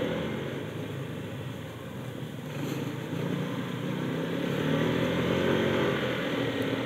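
Motorcycle engine running under way with wind and road noise. It eases off about two seconds in and picks up again.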